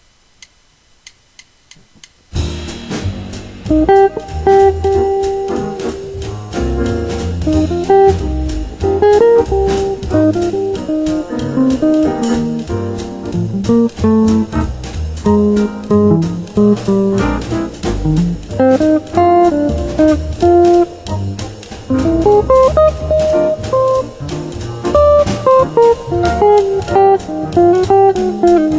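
Extended-range electric guitar playing a jazz tune in single-note lines and chords, starting about two seconds in after a few faint clicks, with a bass line underneath.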